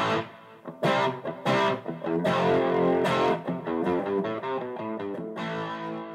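Guitar music with chords struck about once a second, fading out near the end.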